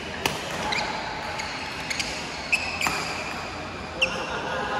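Badminton rally: a few sharp racket strikes on the shuttlecock and short squeaks of court shoes on the floor, over the steady murmur of a sports hall.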